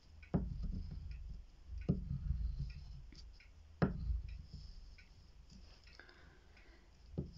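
White wax candle drawn across drawing paper on a tabletop: a low rubbing with four sharp knocks as the candle meets the paper, the rubbing dying down in the second half.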